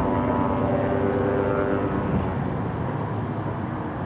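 Boeing 737-800 airliner's CFM56-7B turbofan engines heard in flight: a steady rushing jet noise with several humming tones through it, easing slightly toward the end.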